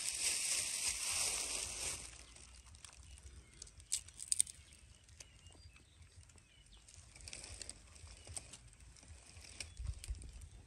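A crinkling rustle for about the first two seconds, then a quiet outdoor background broken by a few light clicks about four seconds in.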